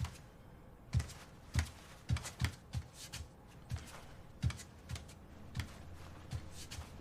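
A series of irregular sharp knocks and clicks, about fifteen of them, closest together around two to three seconds in.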